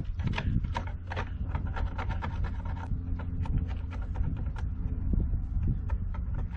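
A hand chisel scraping wood in quick, irregular strokes, over a steady low hum.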